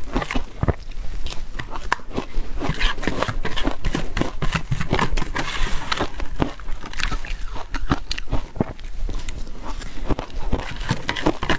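Close-miked crunching and chewing of soft shaved ice coated in powder, a dense run of small crunches, mixed with a metal spoon scraping and clicking against a clear plastic tub as it scoops.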